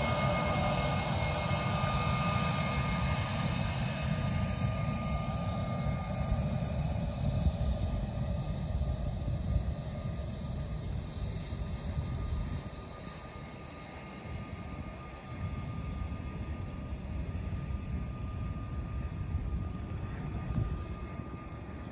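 Business jet's rear-mounted turbofan engines running with a steady whine as the jet rolls past, fading about halfway through. Wind rumbles on the microphone throughout.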